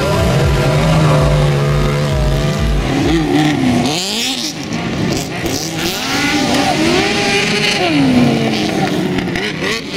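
Road-racing motorcycles running on a dirt track: a steady engine note for the first few seconds, then engines revving up and down as riders accelerate and back off.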